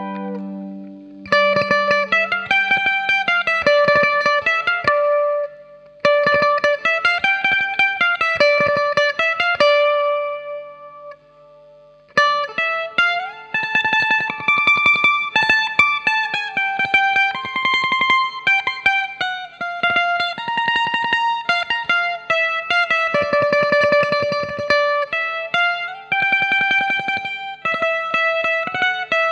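Givson electric mandolin with a single-coil pickup, played through guitar amp and effects plugins: a melody picked in phrases, with short breaks about a second in, around six seconds and around eleven seconds, then a melody in fast repeated picking from about thirteen seconds on.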